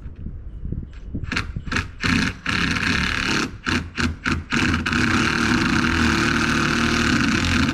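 Handheld power tool running, switched on and off in several short bursts and then held steadily for about three seconds near the end.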